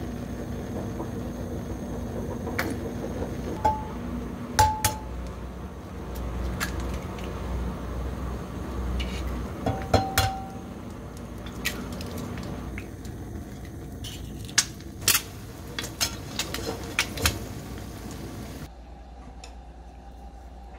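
Eggs being cracked on the rim of a stainless steel frying pan and fried: sharp clicks and knocks of shell and utensils on metal, a few leaving a brief ringing tone from the pan, over a steady background hum. The background drops away near the end.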